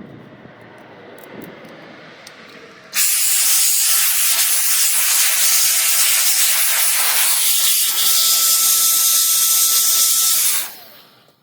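Electric keyboard blower switching on about three seconds in and running as a loud, steady rush of air with a faint high whine, blowing dry debris out of a typewriter's mechanism, then cutting off near the end. Before it comes a quieter, rough rustling.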